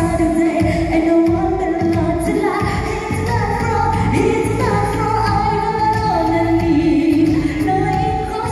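Female singer's pop vocal into a handheld microphone over backing music, the melody moving up and down in sustained phrases.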